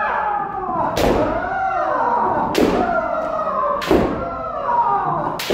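Kendo strikes: four sharp cracks about every one and a half seconds, each with a drawn-out shout (kiai) that falls in pitch.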